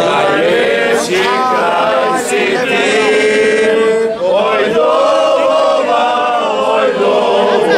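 A group of men singing a song together, loud, with a long held note about three seconds in.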